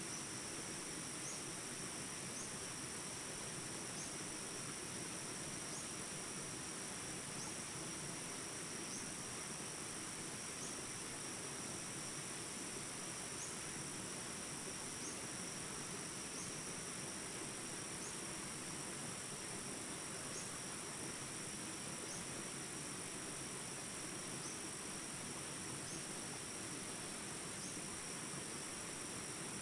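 Steady high-pitched insect drone, cricket-like, with a short rising chirp repeating about every second and a half, over the even rush of small jungle rapids.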